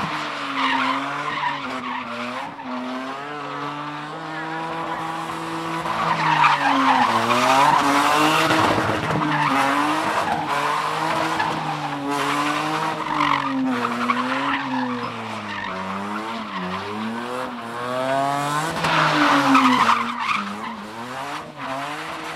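Car engine revving up and down again and again while the rear tyres spin and squeal as the car does donuts in its own tyre smoke. It is loudest about a third of the way in and again near the end.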